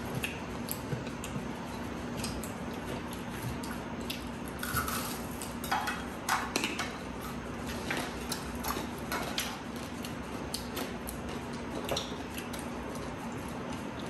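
People eating at a table: irregular clicks and light clinks of plates and utensils as fried food is picked up and handled, over a faint steady hum.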